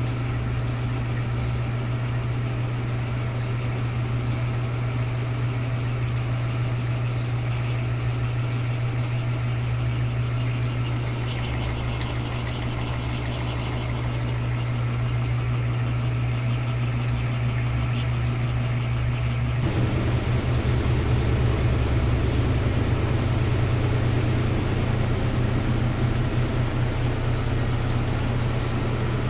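Electrolux LT13B 13 kg washing machine running with a steady low motor hum; about twenty seconds in the sound changes to a throbbing, slightly louder pattern.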